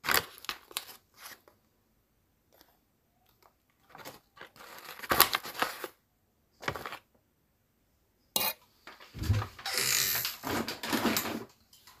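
Intermittent light clatter and rustling, in short bursts separated by quiet gaps, with a sharp click about two-thirds of the way through and a denser stretch of noise near the end.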